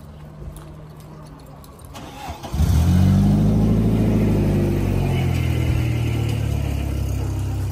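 Car engine starting about two and a half seconds in, rising briefly in pitch, then running steadily.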